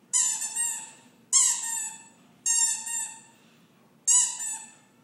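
Rubber squeeze-toy squeaker, the squeaky clown-nose gag, squeaking four times about a second apart. Each squeak is a bright, high honk in two quick parts.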